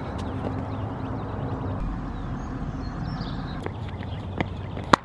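Tennis ball being struck and bouncing on a court: a few faint knocks, then a sharp crack near the end, over a steady low rumble.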